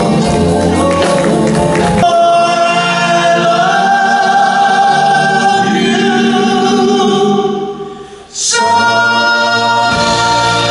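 Live doo-wop performance: a male lead singer sings into a handheld microphone over a band. About two seconds in, the bass and drums drop away, leaving long held vocal and chord notes. These fade out a little before eight seconds, and then the full band crashes back in.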